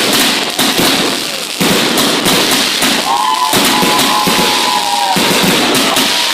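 Fireworks battery (cake) firing a rapid string of shots, with sharp bangs over a continuous dense crackle. A long, slightly bending high tone runs through the middle.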